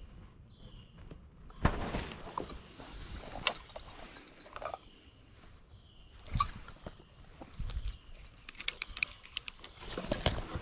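Steady high insect buzz with a short chirp repeating about once a second, broken by a few sharp thumps and a quick run of clicks near the end from gear being handled close to the microphone.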